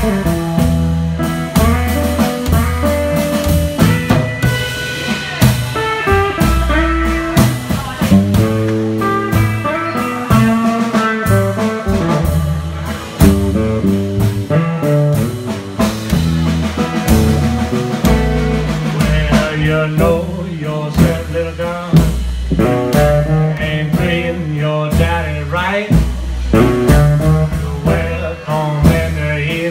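Live blues band playing: fast-picked string melody over an upright bass line and drums.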